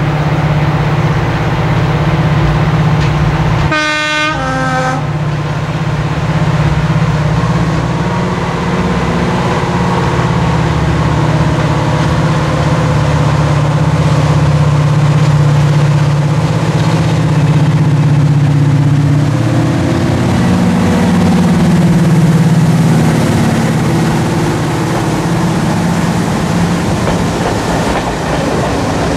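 British Rail Class 55 Deltic diesel locomotive running under power as it hauls a passenger train past, its twin Napier Deltic two-stroke engines giving a steady loud note. A short horn blast sounds about four seconds in. The engine note shifts down in pitch as the locomotive passes, about two-thirds of the way through, before the coaches roll by.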